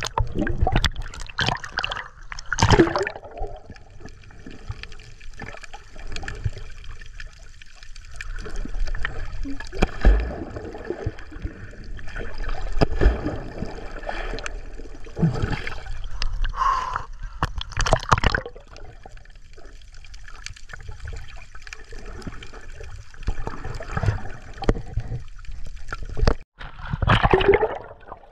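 Seawater splashing, trickling and dripping as a fishing net is hauled aboard a small boat, with scattered knocks and splashes.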